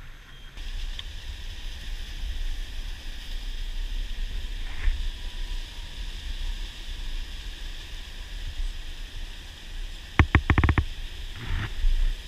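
Rushing mountain stream, a steady hiss of falling water under a fluctuating low rumble. About ten seconds in comes a quick run of about six sharp knocks, and one more shortly after.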